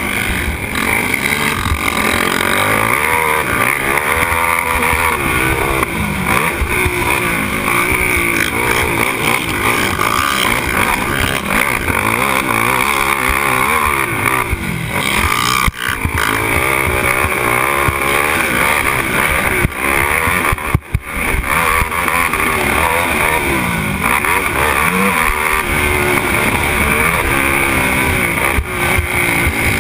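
Race quad's engine under hard throttle, heard from the rider's seat, its pitch climbing and falling again and again through gear changes and corners. The throttle snaps shut briefly about halfway through, and again a few seconds later.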